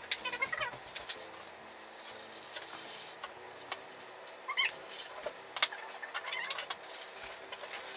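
Knife slicing and tapping on a plastic cutting board in a run of short clicks, with parchment paper crinkling as it is laid into a metal baking tray. A few short, high, wavering chirps come through.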